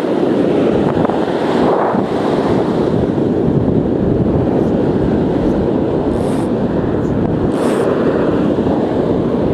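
Strong wind buffeting the microphone over breaking surf, a loud, steady rush with two short hisses in the second half.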